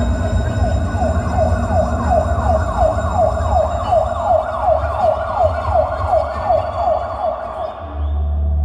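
Siren sound effect in a dance music track: a quick falling wail repeated about three times a second over a steady low bass, breaking off near the end.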